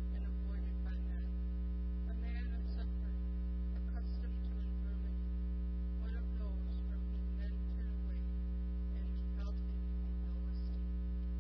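Steady electrical mains hum with a ladder of overtones, the loudest sound throughout, with faint indistinct voices underneath.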